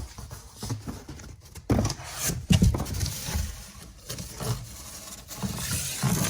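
Handling noise from cardboard firework cake boxes being picked up and moved: irregular knocks, scrapes and rustling, with the loudest thumps about two seconds in.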